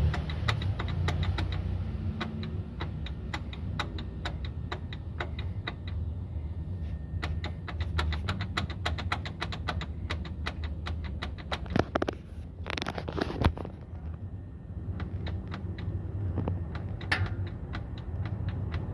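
Citroën C3 running with a steady low hum, over which comes a rapid train of sharp clicks and knocks, fast and even at first, then irregular, with a few louder clunks a little past halfway: the suspension noise being shown.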